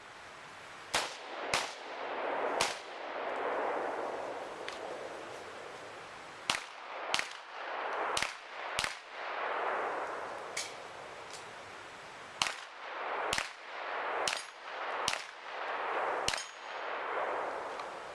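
A string of about a dozen gunshots fired on a practical shooting stage, often two in quick succession with pauses between. A hiss swells back up after each shot.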